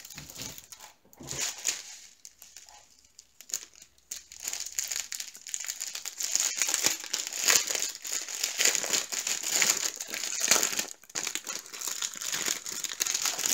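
Clear plastic packaging crinkling as it is handled: scattered crackles at first, becoming near-continuous from about halfway through.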